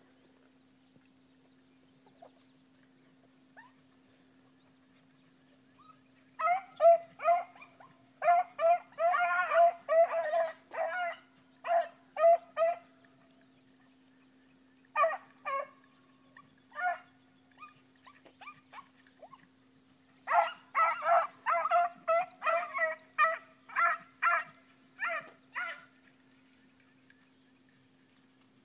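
Rabbit hounds baying in quick runs of barks, with pauses between, starting about six seconds in: the hounds are giving tongue on a rabbit's trail.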